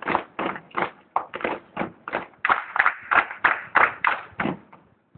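A group's feet stamping in unison in a marching drill: a steady run of sharp thumps, about three a second, fading in the last half-second.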